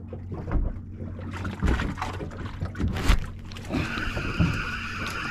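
Choppy water slapping against the hull of a small fishing boat, with wind on the microphone and low thumps. About four seconds in, a steady whirring starts: a spinning reel being wound in.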